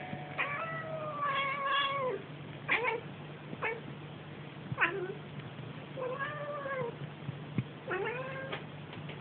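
Domestic cat meowing in a run of odd calls. The first is one long drawn-out meow lasting nearly two seconds that bends down at the end. Then come three short chirp-like calls and two more meows that dip and rise in pitch.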